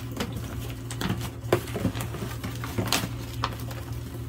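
Irregular knocks and light clatter of items being handled and packed into a cardboard box, over a steady low hum.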